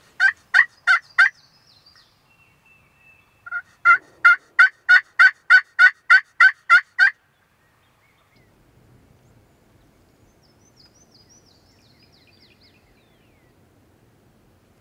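Turkey yelping: two runs of evenly spaced, loud yelps about three a second, a short run at the start and a longer one of about ten yelps from about four seconds in.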